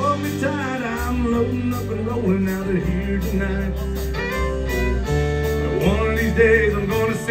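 Live country band playing: fiddle with acoustic and electric guitars over a low bass line and a steady beat, the lead notes bending and sliding.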